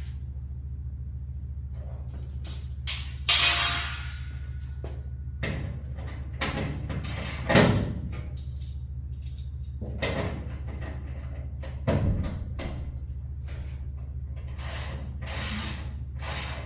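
Metal clanks, knocks and scrapes of hand tools and steel reinforcement bars being worked on a garage door, with three loudest knocks about three, seven and twelve seconds in, over a steady low hum.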